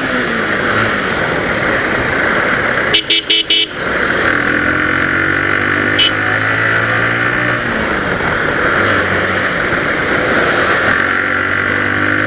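Motorcycle engine running on the move, its pitch falling and rising again with throttle and gear changes, over steady wind noise. About three seconds in a vehicle horn gives four quick toots, and a single short toot follows about six seconds in.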